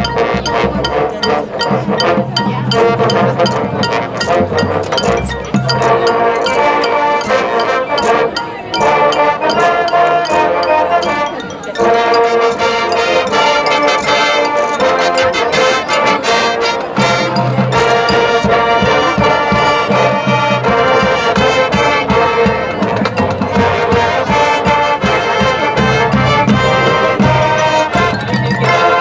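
High school marching band playing its halftime show: brass sustaining chords over a drumline, with short dips in volume about eight and eleven seconds in before the full band comes back in.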